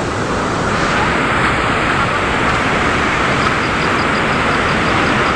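Steady rushing noise of rain and running water, loud and even throughout.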